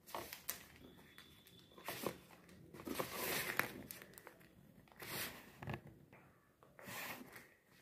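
Origami paper rustling and crinkling as it is handled and folded, in several short quiet bursts with a few light clicks.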